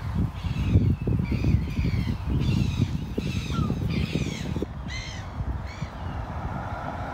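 A bird calling over and over: short calls that each slide downward, about two a second, stopping about six seconds in, over a low background rumble.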